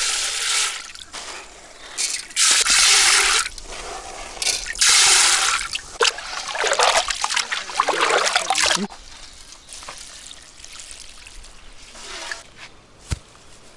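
Basmati rice poured into a steel pot of water, then hands swishing and rubbing it through the water to wash it, in several splashy bursts that die down after about nine seconds. A single sharp tap near the end.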